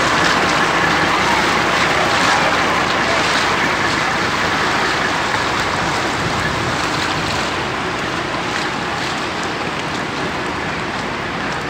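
Steady rushing of floodwater running down a flooded street, easing slightly toward the end.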